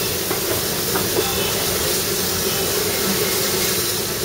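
Darjeeling Himalayan Railway narrow-gauge train running slowly, heard from aboard a coach: a steady hissing rush with a low rumble underneath.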